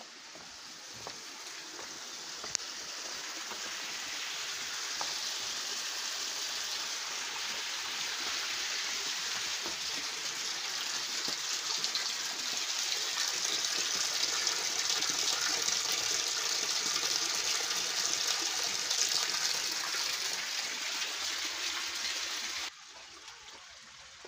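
Water pouring from a pipe spout into a stone channel: a steady gushing splash that grows louder, then cuts off abruptly near the end.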